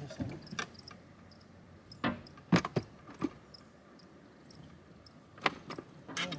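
A few light knocks and clicks of fishing tackle being handled in a boat, scattered over several seconds, the loudest about halfway through.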